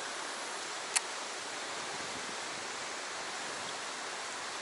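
Steady rush of a fast-flowing stream, with one sharp click about a second in.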